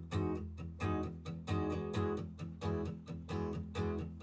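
Recorded song playing from a countertop stereo: guitar strummed in a steady rhythm. It is a recording of the late son's own song.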